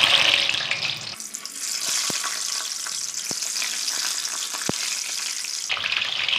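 Pempek dough logs sizzling in hot oil in a stainless steel wok as they are lowered in one after another; a steady frying hiss, loudest near the start.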